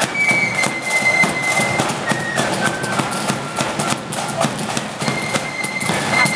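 Marching flute band playing a tune: high held flute notes stepping from pitch to pitch over steady drum strikes.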